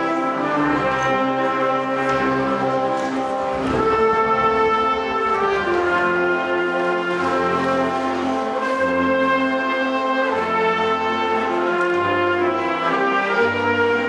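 Military wind band playing: brass (trumpets, baritone horns), clarinets and saxophones in sustained chords over a moving bass line.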